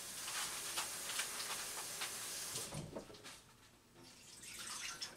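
Kitchen tap water running in a steady hiss for about three seconds, then shut off, as dried chili peppers are rinsed.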